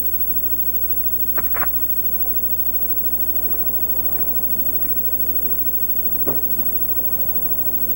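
Steady hiss and low hum of a worn VHS transfer of an old film soundtrack. Two brief high chirps come about one and a half seconds in, and a single sharp click a little after six seconds.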